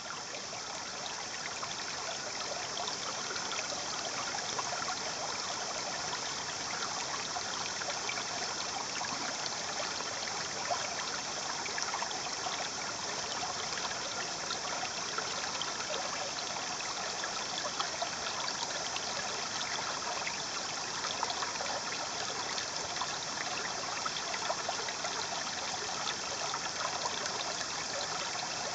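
Shallow water running and trickling over sand, a steady bubbling rush.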